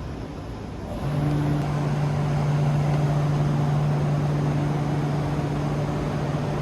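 KTX high-speed train noise: a steady low hum over a rushing noise, which gets louder about a second in and then holds.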